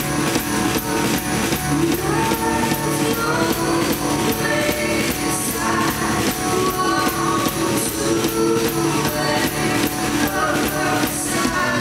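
Live rock band performing: a woman singing over electric guitar, with a tambourine struck in a steady beat.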